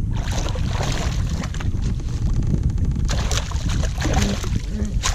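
Hooked flathead thrashing at the surface and splashing as a landing net is scooped through the water under it, an irregular run of splashes and sloshes.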